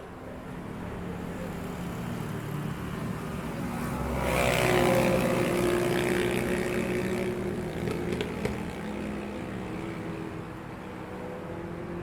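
City street traffic with engines running; one vehicle comes up and passes close, loudest about four to six seconds in, then fades back into the steady traffic.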